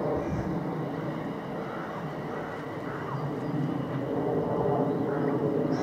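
Class 350 Desiro electric multiple unit running along the track, a steady rumble and hum from its traction equipment and wheels.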